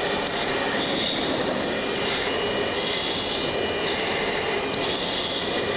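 Steady in-flight cockpit noise of an F-16D fighter: the even rush of air and engine, with a few faint high steady tones running through it.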